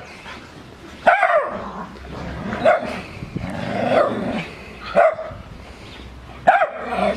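Small dog barking in short, sharp barks, four or five spread unevenly, with a longer rougher stretch about four seconds in.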